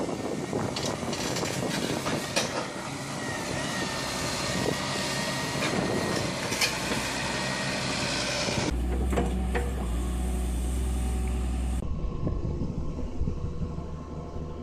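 Wheeled hydraulic excavators' diesel engines running under working load, with scattered knocks and clanks as stone blocks are handled by a rotating stone grab. About nine seconds in the sound changes abruptly to a deeper steady engine drone, and changes again about three seconds later.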